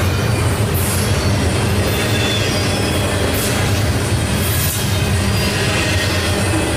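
Double-stack intermodal well cars rolling past at close range: a steady, loud rumble of steel wheels on rail, with thin, high wheel squeals now and then.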